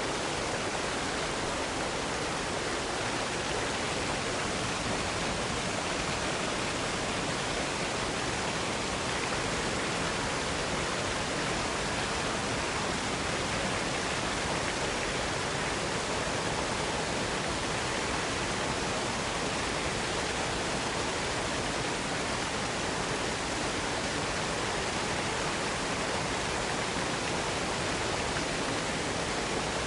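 Waterfall pouring steadily into a small box canyon: an even, unchanging rush of falling water.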